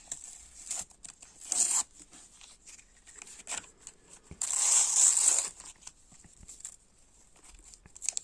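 A Panini sticker packet being torn open: a short rip about a second and a half in, then a longer, louder tear around five seconds in, with light rustling of the wrapper between them.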